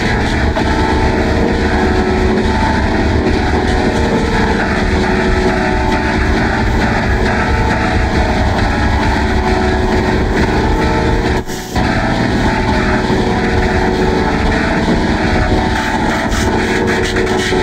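Heavily distorted, effects-processed audio: a loud, dense drone of noise with steady tones buried in it. It cuts out for a moment about eleven and a half seconds in.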